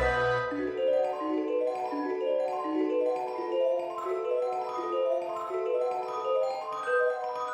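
Background music: a melody of short, struck-sounding pitched notes running at a steady pace, with a low bass note fading out about a second in.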